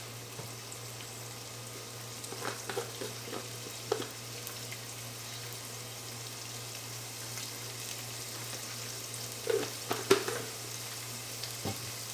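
Chopped onion sizzling as it sautés in hot oil, with a spoon or spatula stirring and knocking against the pan a few times, a couple of seconds in and again near the end.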